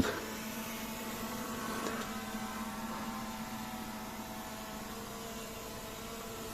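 A faint, steady hum: a constant low tone with several weaker tones above it, unchanging throughout.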